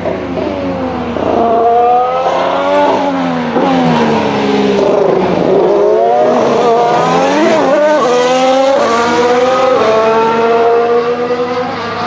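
Formula 1 car engine at high revs, its pitch climbing and then dropping sharply several times as it shifts up and down through the gears, then holding a fairly steady note for the last few seconds.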